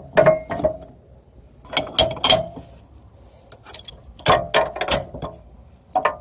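Ratchet wrench turning a bolt on a gooseneck hitch adapter, clicking in short runs of quick strokes with pauses between.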